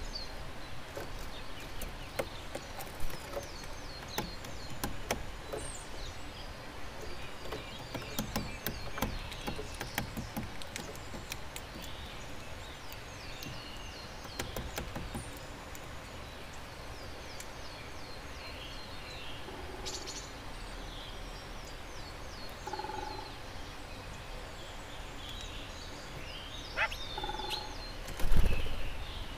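Sharp, irregular cracks of sunflower seeds being split by a hawfinch at a feeder, over small garden birds calling and singing with short, high repeated notes. A loud, dull thump near the end.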